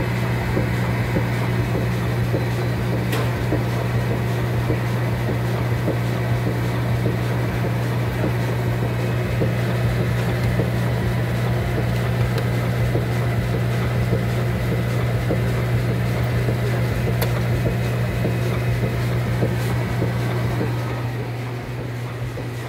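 Band organ's electric blower running with a steady hum, supplying wind to the organ; a little quieter near the end.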